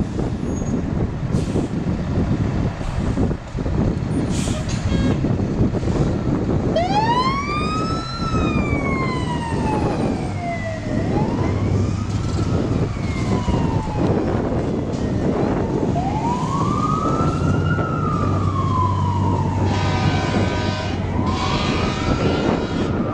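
Fire truck engine running, then a siren wailing from about a third of the way in. The siren rises up and down in slow cycles of about four to five seconds, each quick climb followed by a longer fall.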